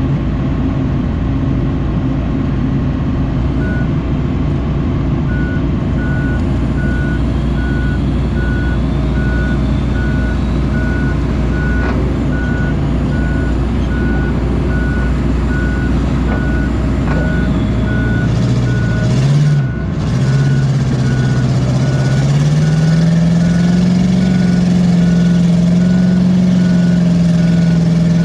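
Tracked excavator's diesel engine running, with its travel alarm beeping at a steady pace from a few seconds in. Past the middle the engine revs up, dips for a moment, then holds at higher revs as the machine works through the mud.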